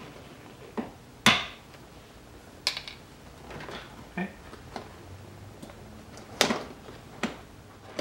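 Sharp plastic clicks and knocks from the centre console trim and shift boot surround being worked loose and lifted out around the gear lever. The loudest comes about a second in, with two more near the end.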